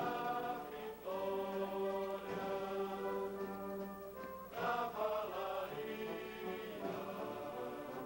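Background music: voices singing long held notes in chant-like phrases, with short breaks between phrases.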